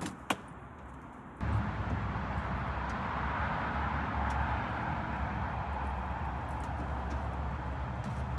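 Two sharp clicks, then about a second and a half in a steady vehicle engine rumble with road noise sets in abruptly and keeps going.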